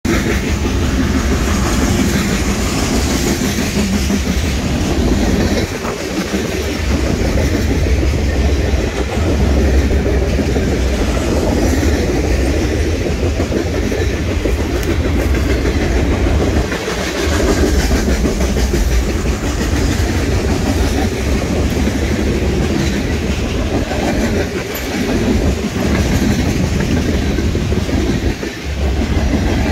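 Freight train passing close by: a loud, continuous rumble of the cars with the wheels clacking over the rails, dipping briefly a few times.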